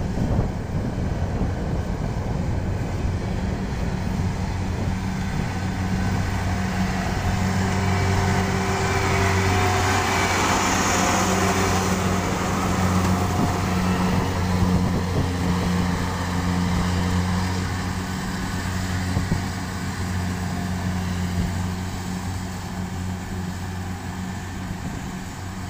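Kubota DC-70 rice combine harvester running under load as it cuts and threshes rice, with a steady low engine hum under the rush of the cutting and threshing works. It is loudest around ten seconds in.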